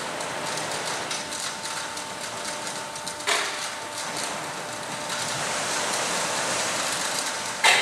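Crate stacking and destacking line running, moving stacks of wooden crates along its conveyor: a steady machine din with a faint steady whine and light rattling, a knock about three seconds in and a loud clack near the end.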